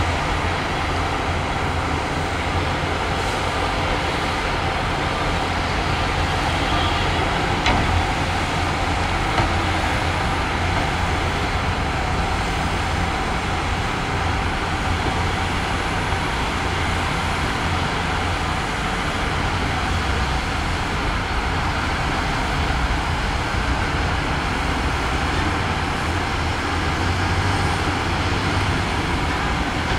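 Heavy diesel earthmoving machinery running steadily under work, with a deep, even engine drone and one brief sharp knock about eight seconds in.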